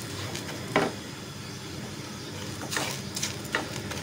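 Silicone spatula stirring and scraping granulated sugar around a nonstick frying pan, the crystals rasping against the pan. There is one scrape about a second in and several close together near the end. The sugar is still grainy and only starting to melt for caramel.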